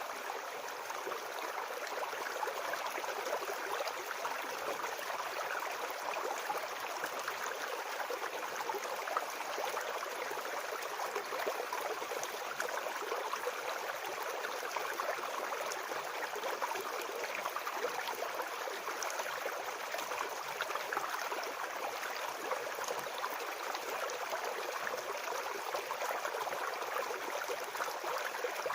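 Small forest brook babbling and splashing over stones in a steady, even rush.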